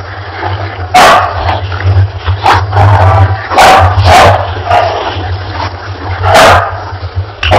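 Puppies yipping and barking in short, sharp calls at irregular intervals, over a steady low hum.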